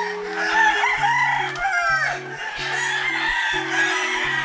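Gamecock roosters crowing, several calls overlapping, with some clucking, over background music of held low notes.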